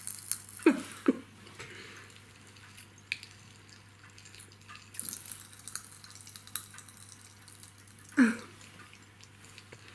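Popping candy crackling in a mouth: faint, scattered little pops and clicks at an irregular pace. Short vocal sounds come near the start and again about eight seconds in.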